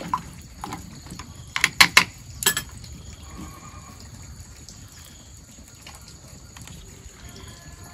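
Chopsticks knocking against a glass pickling jar, several sharp clacks in the first few seconds, then quieter handling as sliced garlic is dropped into the jar's brine.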